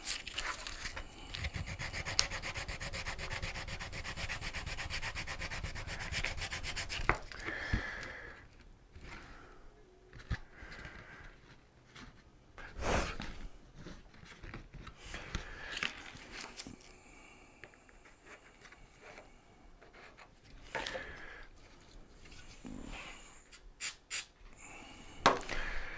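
Sandpaper rubbed quickly back and forth over a repaired plastic scooter panel, a dense scratching for the first eight seconds or so, then scattered handling knocks. Near the end come two short hisses from an aerosol spray can.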